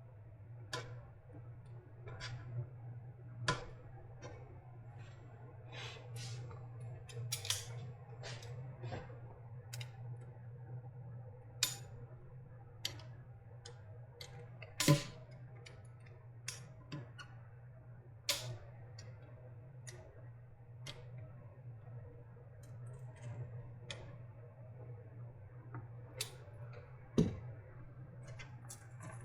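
Irregular clicks and light taps of small tools and parts being handled while the casing of an e-bike battery pack is taken apart. Two sharper knocks stand out, about halfway through and near the end, over a steady low hum.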